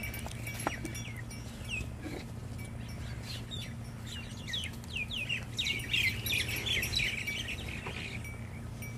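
Birds chirping: a quick run of short, falling chirps that thickens around the middle and then thins out, over a steady low hum.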